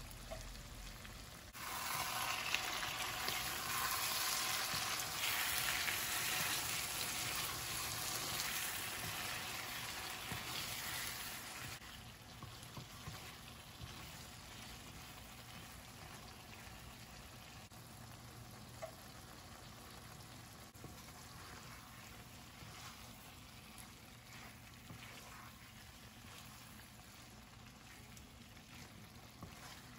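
Chicken pieces frying in a nonstick pan as the masala gravy cooks down dry. It sizzles loudly for about the first ten seconds, then more quietly, with a wooden spatula stirring and scraping through it.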